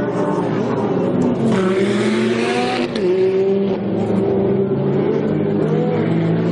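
Race car engines running past on the circuit, several engine notes rising and falling in pitch. A brief rush of noise swells in about a second and a half in and fades a second later.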